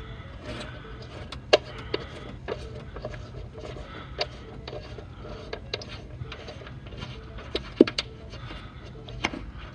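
Small irregular plastic clicks and ticks as a plastic fastener is turned and worked off a threaded stud by hand behind a car tail light, the sharpest about a second and a half in and again near eight seconds. A low steady hum lies underneath.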